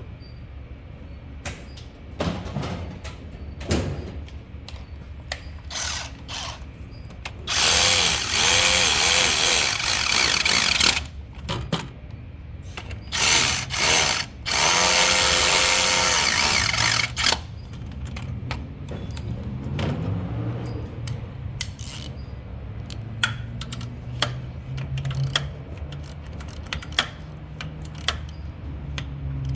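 A cordless power tool, such as an electric ratchet or drill, runs in several bursts of a few seconds each, its motor pitch wavering as it spins fasteners. Sharp clicks and knocks of tools being handled come before it.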